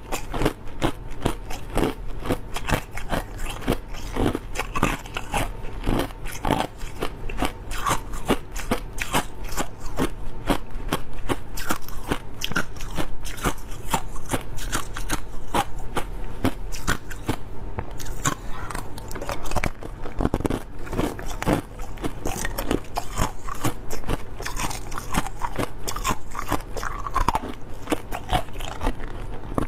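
Close-miked crushed clear ice being bitten and chewed, a rapid, continuous crunching and crackling.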